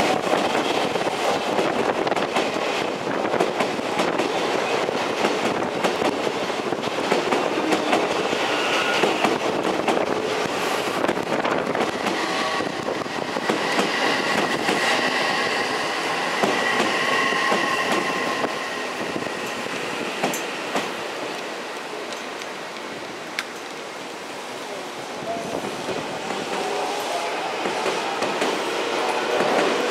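Odakyu electric commuter trains running through the junction's points: continuous wheel clatter over rail joints, with a faint high whine in the middle. The sound eases off a few seconds past the middle, then builds again as another train approaches near the end.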